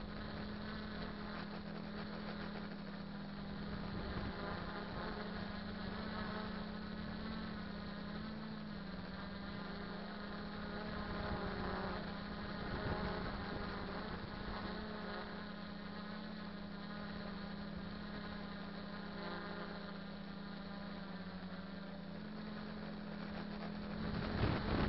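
Quadcopter's brushless 2212 1000KV motors and propellers buzzing in flight, picked up by the onboard camera, with a steady low hum underneath and a higher whine that wavers in pitch as the throttle changes. A brief louder rush comes near the end.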